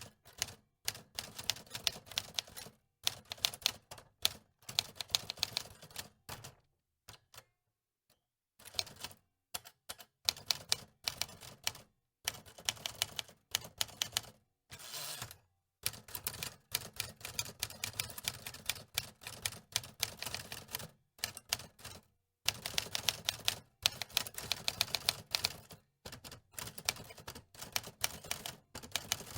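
Typewriter keys clacking in quick runs of strikes, broken by short pauses every few seconds.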